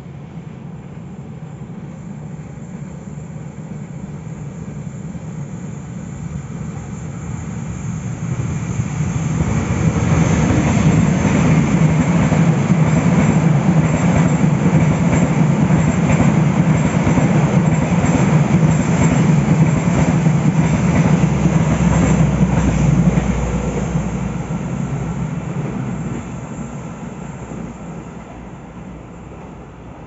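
Passenger train hauled by a diesel-electric locomotive approaching, then running close past with a heavy steady rumble of engine and wheels on the rails, and fading away. The sound builds gradually, is loudest through the middle of the pass, and falls off over the last few seconds.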